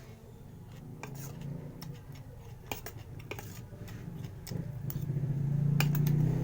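Scattered sharp clicks of a spoon or fork on a plate, with eating noises, over a low hum that grows louder about five seconds in.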